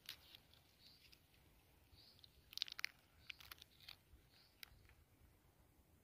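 Faint, short bird chirps repeating every second or so. A quick cluster of sharp little clicks comes a little before the middle, with a few single clicks after: small stationery items being handled.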